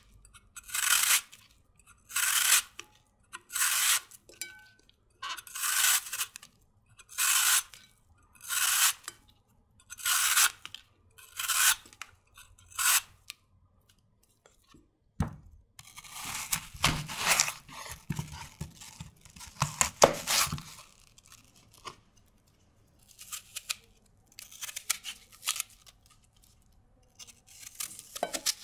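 A vegetable peeler shaving the skin off a crisp apple in long strokes, about one every second and a half. Then a knife crunches through the apple with a few knocks, followed by small, fainter scrapes as the core is cut out.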